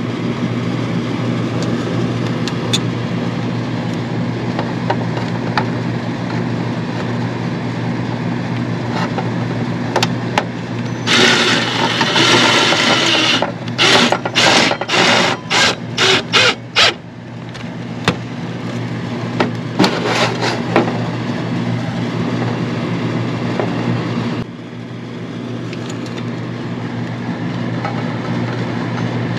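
Hand tool work on a floodlight mounting bracket against the soffit: a couple of seconds of scraping, then about eight short rasping strokes in quick succession, over a steady low hum.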